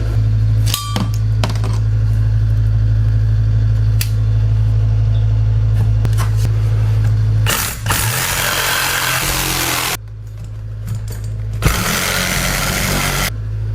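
A steady low hum with a few sharp clicks, broken twice by bursts of rushing noise, one of about two seconds and a shorter one near the end.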